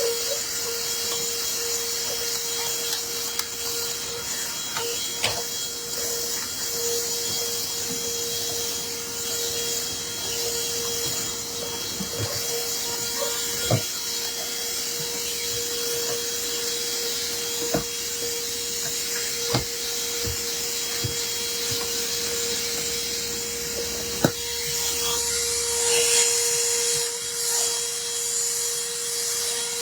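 Handheld car vacuum cleaner running steadily with a constant whine and airflow hiss, its nozzle rubbing and knocking against the car's interior now and then.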